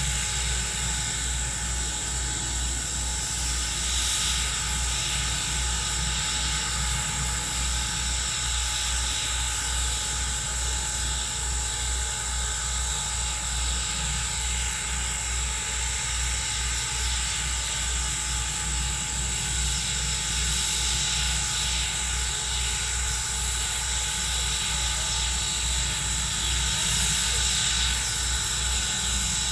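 Steam locomotive standing and working its fire: a steady hiss over a low pulsing rumble, with a few steady whining tones.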